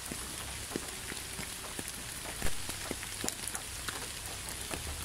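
Steady light rain, an even hiss with many separate drops pattering, one a little louder about halfway through.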